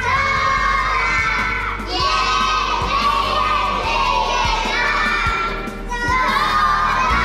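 A group of young children singing together along to a backing track with a steady beat played from a loudspeaker.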